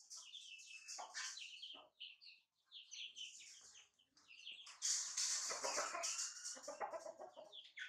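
Chickens clucking and young chicks peeping in quick, short high calls, with a louder, harsher noisy stretch lasting nearly two seconds from about five seconds in.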